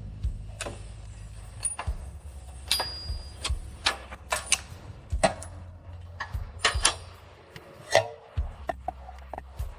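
Irregular sharp clicks and knocks, one or two a second, over a steady low hum.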